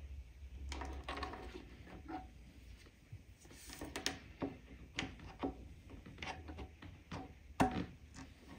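Irregular clicks and light knocks from a hand screwdriver working at the side panel of an IKEA Maximera drawer, with the sharpest knock near the end.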